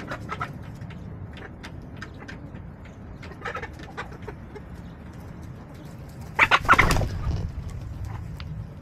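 Backyard hens clucking, with many small taps and clicks throughout. A louder, brief burst of sound comes about six and a half seconds in.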